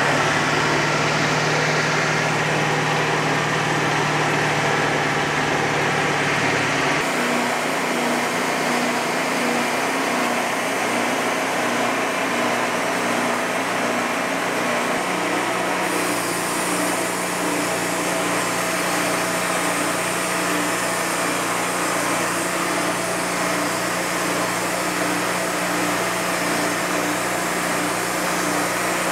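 Wood-Mizer LT40 Hydraulic Wide band sawmill running steadily under power as it makes the next cut. Its tone changes abruptly about seven seconds in and again about sixteen seconds in.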